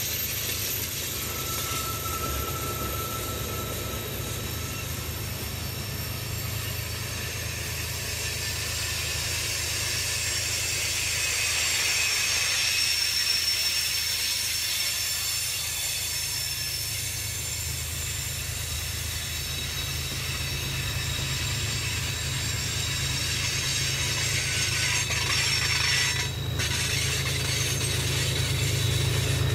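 Tank cars of a freight oil train rolling slowly past on a curve, steel wheels squealing against the rails in several thin high tones over a steady low rumble. Near the end the rumble grows louder as diesel locomotives in the train come up.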